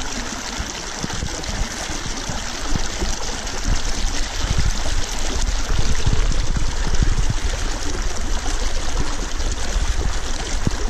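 Shallow creek water rushing and gurgling over stones in a riffle, heard close up from the water's surface. A steady, loud wash of sound.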